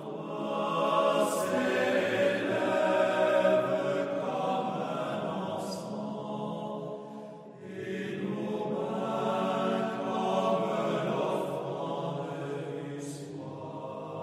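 Slow, meditative music with long held notes, in two phrases with a dip about seven and a half seconds in, fading near the end.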